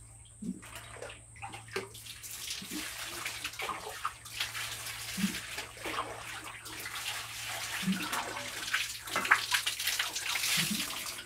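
Water splashing and sloshing in a bucket-bath basin as it is scooped and worked by hand, with a few dull knocks. It builds from about two seconds in, is loudest near the end, and stops abruptly.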